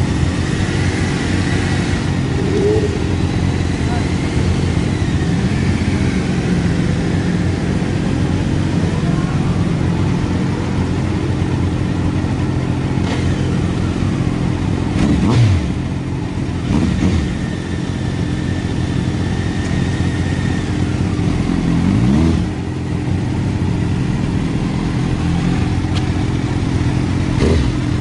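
Yamaha YZF-R1 inline-four engine with a Yoshimura exhaust running hard at speed, holding fairly steady revs. Its pitch briefly dips and rises twice, once around the middle and once a few seconds later.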